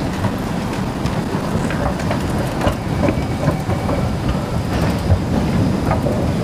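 MRT station ambience on a down escalator beside the train platform: a steady low rumble with scattered light clicks.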